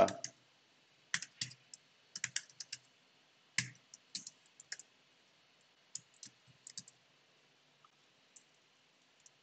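Typing on a computer keyboard: irregular keystrokes in short runs, thinning out about seven seconds in.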